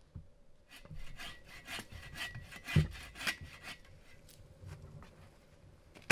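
Hand saw cutting through a firewood log in quick back-and-forth strokes, with one dull thump midway and a sharp knock at the very end.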